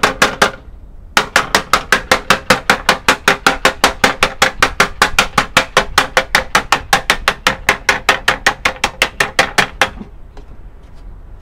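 Hammer blows in a fast, even rhythm of about five a second: a short run of a few blows, a brief pause, then a long steady run that stops near the end.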